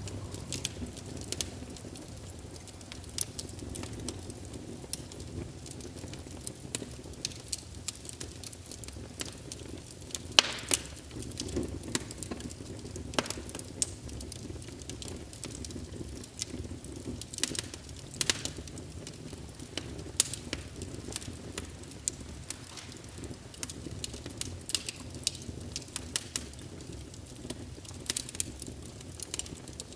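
Wood fire burning, with irregular sharp crackles and pops over a steady low rumble of flames. A few louder snaps stand out, the loudest about ten seconds in.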